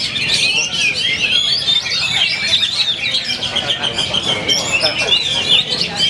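Several caged oriental magpie-robins (kacer) singing at once in a dense chorus of overlapping, rapidly changing whistled phrases, with a fast run of repeated short notes near the middle.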